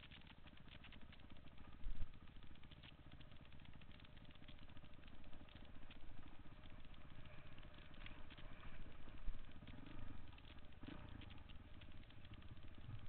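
Dirt bike engine running as the bike rides over a rough trail, with steady rattling and clatter from the bike over the bumps. Two brief dull thumps come about two seconds in and again about nine seconds in.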